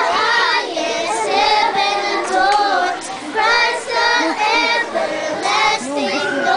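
A group of young girls singing a song together, in short phrases with brief breaks between them.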